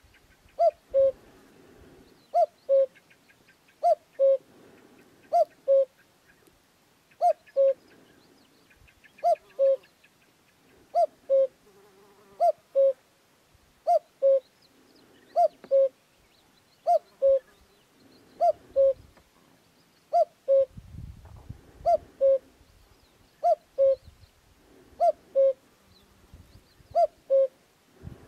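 Male common cuckoo (Cuculus canorus) singing its two-note "cu-coo", the second note lower than the first, repeated steadily about every one and a half seconds.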